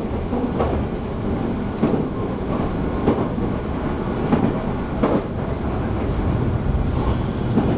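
Meitetsu 3150 series electric train running along the line, heard from inside the passenger car. A steady rumble of wheels on the track, with a sharp clack about every second as the wheels pass over rail joints.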